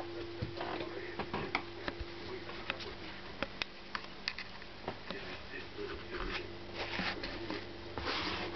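Irregular light clicks and taps over a steady low hum, with two short rustling bursts near the end.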